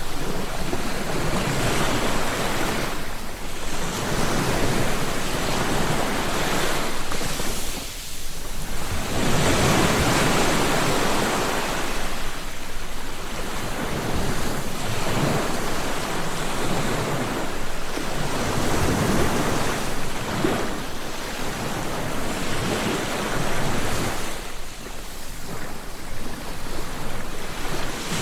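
Sea waves breaking and washing on the shore, the surf rising and falling every few seconds, with wind on the microphone.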